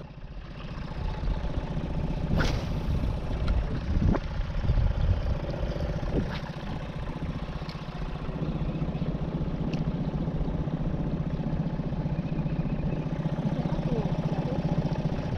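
Boat motor running steadily at low speed, with a few knocks in the first several seconds.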